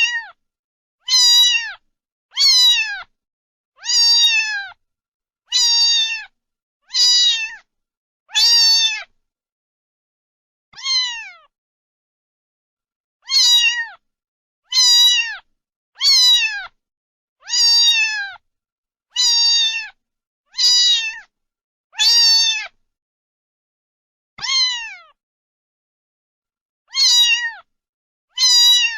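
A cat meowing over and over, high-pitched calls that each slide down in pitch, about one every second and a half, with a couple of longer pauses.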